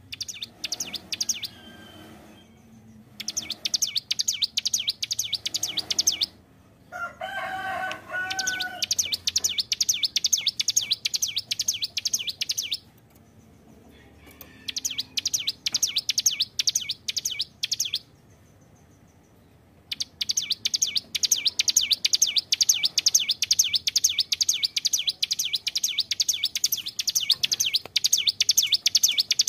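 Ciblek gunung prinia in full song: long runs of rapid, high repeated chirps lasting several seconds each, broken by short pauses. About seven seconds in, a lower, fuller call of about two seconds sounds under the chirping.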